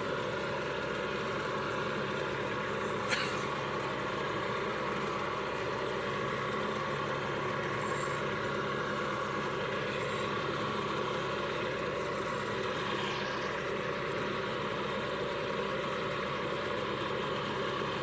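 An engine running steadily at an even speed, with one short click about three seconds in.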